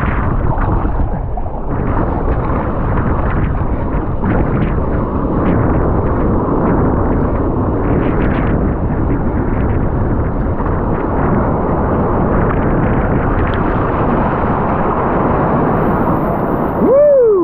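Breaking surf and whitewater rushing around a kayak as it runs in on a wave, with wind buffeting the microphone. Near the end a short pitched whoop rises and falls.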